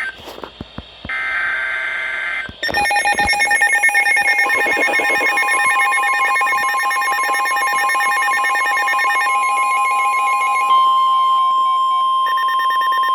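NOAA Weather Radio alert signals: a short burst of buzzy SAME header data, then, about two and a half seconds in, a shrill layer of several electronic alarm tones at once. A steady 1050 Hz warning alarm tone joins about four and a half seconds in. Together they herald a newly issued special marine warning.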